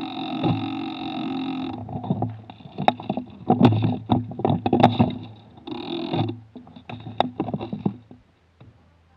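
Knocks, scuffs and rustling carried through an airsoft gun with a rail-mounted camera as it is handled and carried, after a steady hum that cuts off about two seconds in.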